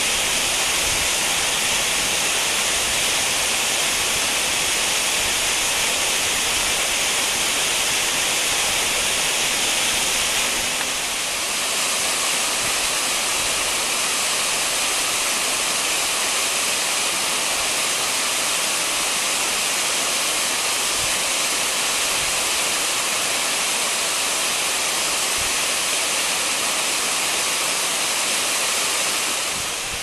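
Tall, narrow waterfall pouring down a rock face: a steady, even rush of falling water, strongest in its hissing upper range. The level dips briefly about eleven seconds in.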